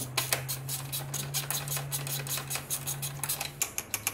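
Ratcheting wrench clicking in a fast, even run, about six clicks a second, as a bolt on the rear hub and suspension is worked, with a steady low hum underneath.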